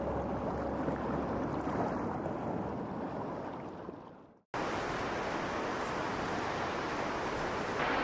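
Steady rushing noise of river water. It fades out to silence about four seconds in, then cuts back in abruptly, a little hissier.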